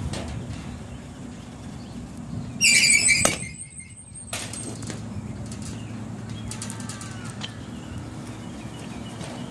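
Batting-cage pitching machine giving a brief, loud, high squeal as it throws a softball, followed about half a second later by a sharp knock as the ball is struck, and another knock a second after that.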